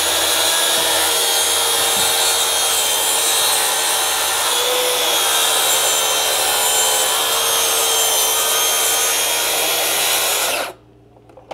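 Circular saw running steadily at a constant pitch through one long cut in PVC composite tongue-and-groove deck boards, stopping near the end. The blade depth is set to just barely cut through the boards.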